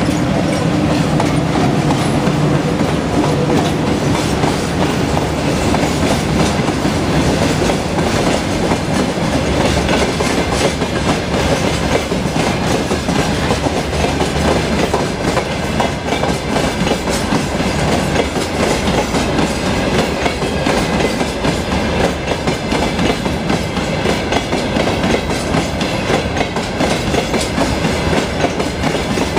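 Train in motion, its wheels clattering steadily and rhythmically over the rail joints.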